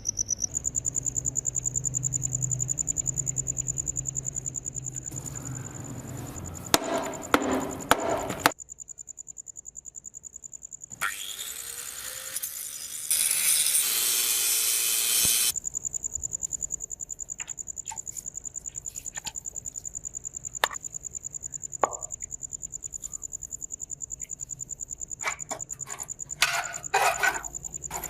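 Insect chirping steadily at a high pitch in a fast pulsing trill, with scattered clicks and knocks. It stops for several seconds in the middle, where a hiss takes its place.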